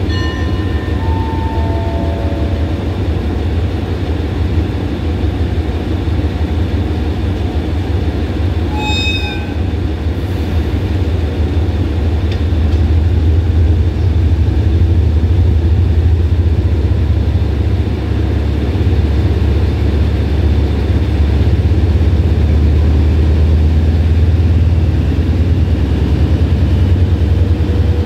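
Diesel-electric locomotive idling at a standstill, its engine drone steady and low, growing somewhat louder about halfway through. A few descending chime notes sound in the first couple of seconds.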